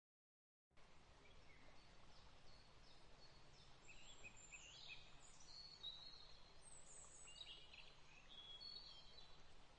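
Faint birdsong: small birds chirping in many short, high calls, some of them quick falling whistles, over a steady outdoor hiss. It starts suddenly under a second in.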